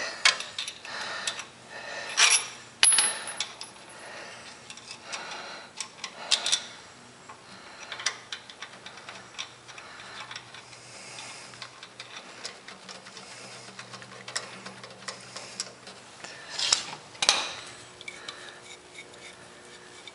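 Hand tools clinking and scraping against metal parts under a tractor: scattered clicks and taps, busiest in the first few seconds, with two louder clinks about seventeen seconds in.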